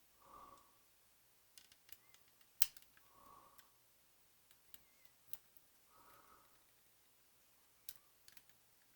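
Faint, scattered clicks and taps of small plastic model-kit parts being handled and pressed into place, the sharpest click a little over two and a half seconds in.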